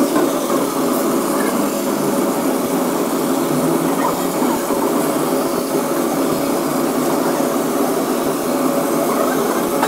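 Laser cutter running as it cuts a wooden sheet: a steady machine hum and whir at an even level.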